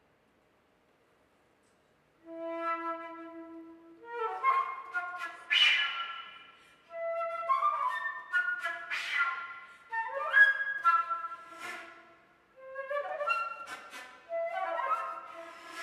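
Solo concert flute, entering after about two seconds of silence with a held low note, then playing quick runs, trills and short darting phrases in the manner of birdsong.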